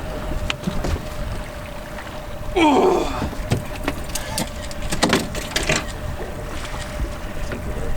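A boat motor running steadily, with a low rumble and a constant hum. About three seconds in there is a short vocal grunt whose pitch rises and falls, and around five seconds a few sharp knocks on the boat.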